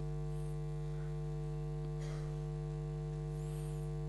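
Steady electrical mains hum in the microphone and sound system: a low, unchanging buzz with a stack of even overtones.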